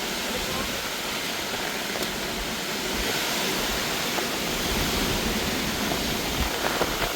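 Heavy rain falling steadily, an even rushing hiss.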